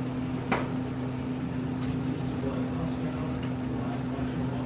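Chicken and sliced bell peppers and onion frying in an oiled skillet, a steady hiss over a steady low hum, with one sharp click about half a second in as the vegetables go into the pan.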